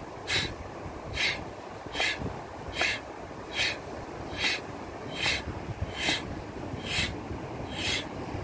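Sharp, rhythmic breaths, about ten short puffs a little under a second apart, in time with the stick exercise, over a steady low rumble of wind and surf.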